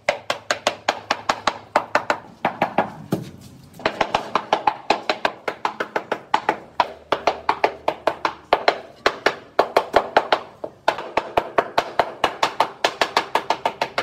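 Rubber mallet tapping ceramic floor tiles down into their adhesive bed: quick knocks, about five a second, in runs with two short pauses.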